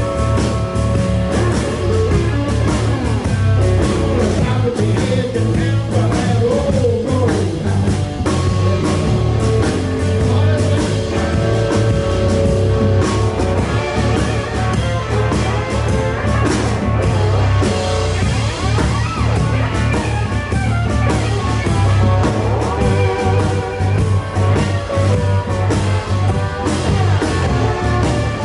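Live blues-rock band playing: guitar over a steady bass line and drums.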